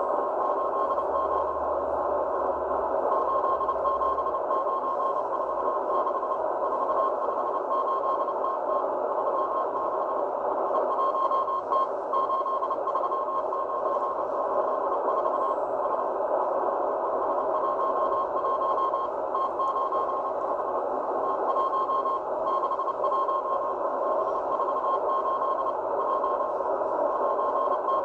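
Morse code (CW) from the M12 Russian number station received on a Tecsun H-501X shortwave radio in upper sideband: a high beeping tone keyed on and off in dots and dashes over a constant bed of shortwave static hiss.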